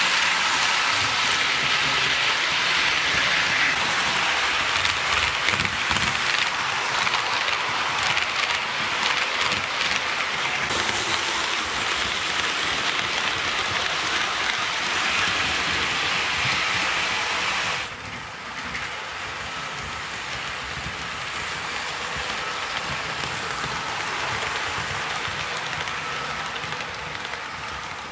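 HO scale model trains running on sectional track: a steady rushing hiss of metal wheels on the rails, peppered with fast fine clicking from the rail joints. It gets suddenly quieter about two-thirds of the way through.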